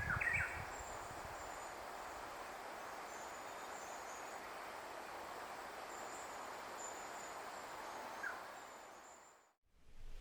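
Outdoor nature ambience: a steady hiss with a faint, thin, very high-pitched call that comes and goes in short streaks, and a brief chirp at the start. The sound fades out shortly before the end.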